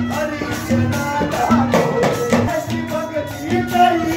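Instrumental devotional folk music: a deru hourglass drum and jingling hand clappers keep a quick rhythm under an Indian banjo playing a tune of short held notes.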